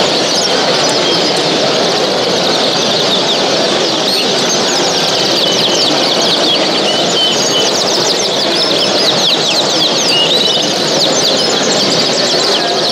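Many caged songbirds chirping and trilling at once, a dense overlapping chorus of quick high calls over a steady hubbub.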